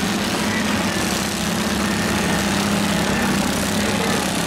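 Several garden tractor and riding lawn mower engines running at once, a steady mixed engine noise with no pauses.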